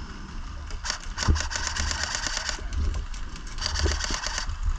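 Two bursts of rapid full-auto airsoft rifle fire: a run of fast, even clicks lasting nearly two seconds starting about a second in, then a shorter burst near the end, over a low rumble from wind and handling on the microphone.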